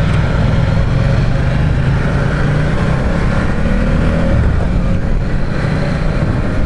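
Ducati Diavel 1260's 1262 cc Testastretta V-twin under way at low speed. It runs steadily, rising and falling a little in pitch as the throttle is worked a few seconds in.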